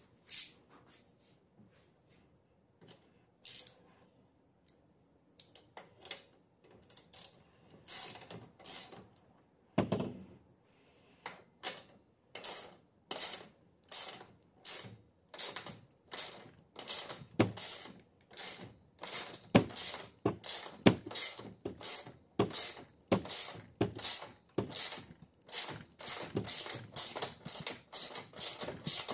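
Ratchet wrench clicking in steady back-and-forth strokes, about two a second, as the wheel's axle nut on a small dirt bike is worked. There are scattered clicks and a dull thump before the steady rhythm sets in about a third of the way through.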